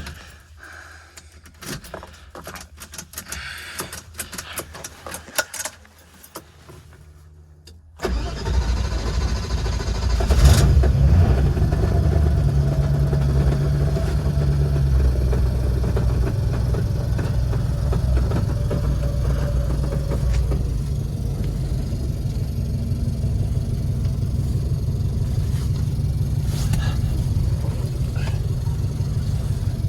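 Fiat 124's engine being cold-started. After several seconds of faint, irregular clicking, it catches about eight seconds in, picks up briefly, then settles into steady running.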